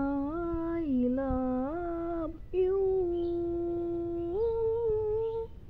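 A voice humming a slow wordless melody of held notes in two long phrases, the second fading out shortly before the end.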